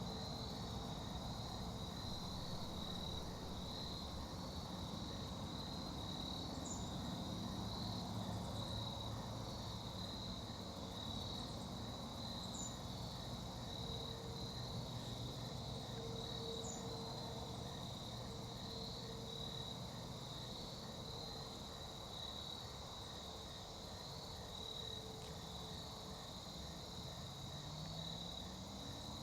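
Insect chorus, a steady high pulsing trill like crickets, with a faint short high chirp every few seconds over a low background hum.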